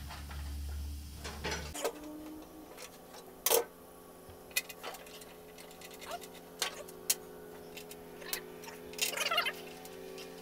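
Scattered light clicks and taps of steel nuts and bolts being handled and threaded by hand onto engine mounting bolts under the mower's steel deck plate. A low hum cuts off about two seconds in.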